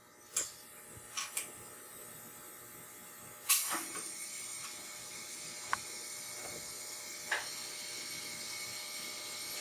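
A few light clicks of hose fittings being handled, then about three and a half seconds in a quick-connect coupler snaps on and compressed air starts hissing steadily into the cylinder of a Briggs & Stratton flathead engine under a leak-down test. The steady hiss is air escaping from a cylinder that shows about 40% leakage.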